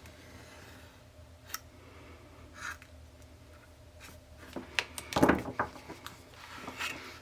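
Hobby knife blade cutting through the edge of a stack of paper pages, heard as scraping strokes and small clicks. The cutting is sparse at first, with a click and a short scrape, then comes in a denser run of strokes over the last few seconds.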